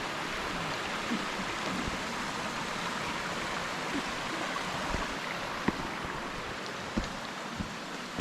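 Steady rush of running water from a stream or waterfall, with a few short knocks in the second half, the rush easing slightly toward the end.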